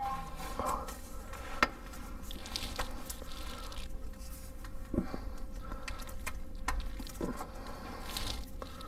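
A breaker bar levering the serpentine belt tensioner on a 3.6 Pentastar V6 as the new belt is worked onto the pulleys: a few scattered metallic clicks and knocks over a faint steady hum.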